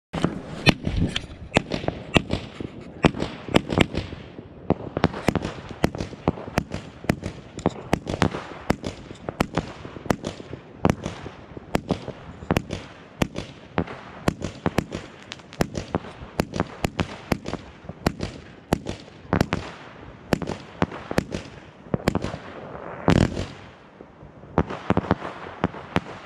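A 36-shot, 20 mm crossette firework battery (Jorge Eden) firing: an uneven, rapid run of launch thumps and sharp cracks as the coloured stars split, with one especially loud report near the end.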